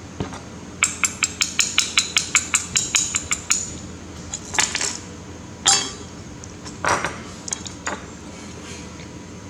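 Small metal objects being struck or handled: a quick run of light metallic taps, about five a second, then a few separate louder clinks and scrapes.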